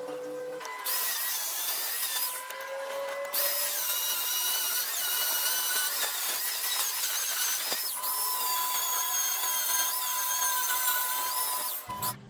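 Power tool running under load, a hiss with a high whine that wavers in pitch. It eases off for about a second just after two seconds in, dips briefly near the eight-second mark and cuts off suddenly near the end.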